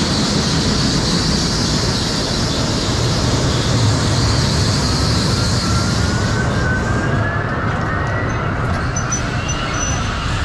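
Hydraulic kiddie airplane ride spinning: a steady rushing noise, with a faint tone rising slowly in pitch through the second half.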